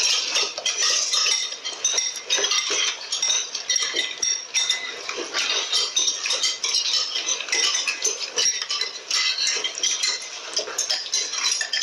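Forks and spoons clinking and scraping on plates and bowls as people eat at a table, a busy run of small clinks.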